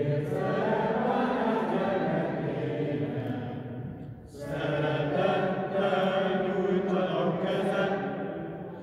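A group of voices singing a slow chant-like hymn in a reverberant church, in two long phrases with a short break about four seconds in.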